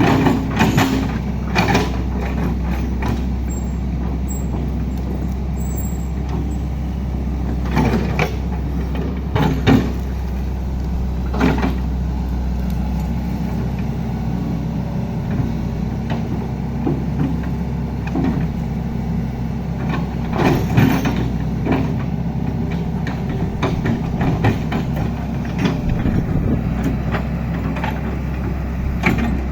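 Large diesel engine of heavy road-work machinery running steadily, with occasional short knocks and clanks.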